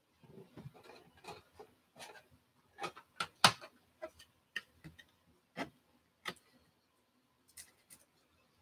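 Baseball cards and a clear plastic card holder being handled: scattered light clicks and rustles, the sharpest about three and a half seconds in, thinning out after about six seconds.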